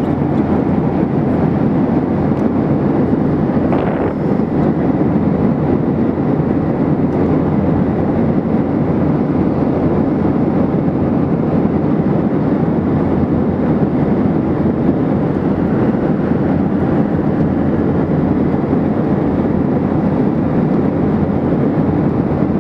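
Steady cabin noise of a Boeing 737-800 in flight, heard from a window seat: the CFM56-7B turbofan engines and the airflow over the fuselage make an even, low rush that holds the same level throughout.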